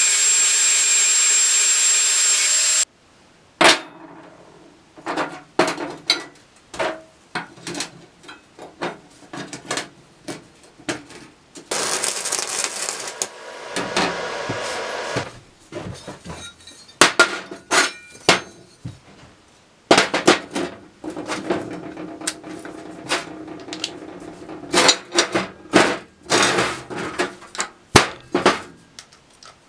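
Workshop work: a power tool runs loudly with a high whine for about three seconds and cuts off, then come many clicks, knocks and taps of metal parts and hand tools being handled, with another short burst of tool noise near the middle.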